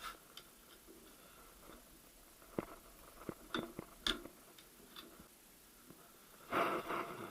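Metal gearbox parts clicking and tapping as the fifth-gear set is taken off a VAZ-2108-family manual gearbox: a handful of separate sharp clicks, then a louder scraping rattle near the end.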